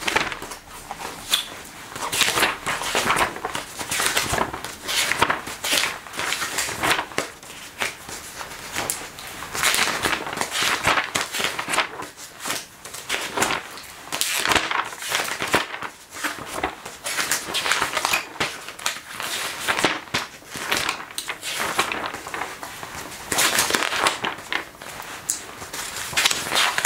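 Pages of a glossy magazine being turned and handled one after another: a continual run of crisp paper rustles and crackles.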